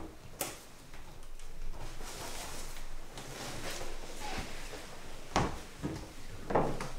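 Footsteps, rustling and a few dull knocks on a wooden stage as performers move in the dark during a blackout scene change, with a heavier thump about five and a half seconds in.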